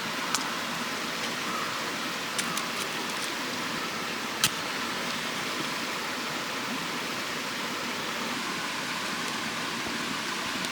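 Campfire crackling: a few sharp pops, the loudest about four and a half seconds in, over a steady rushing background noise.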